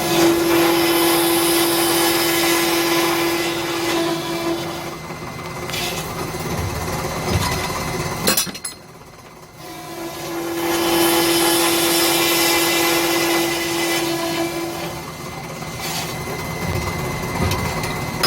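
BEKAMAK BMDO 80CS fully automatic HSS circular saw machine running through two cutting cycles, each with a steady tone while the saw runs. About halfway, a sharp clack comes just before a brief lull, and then the next cycle starts.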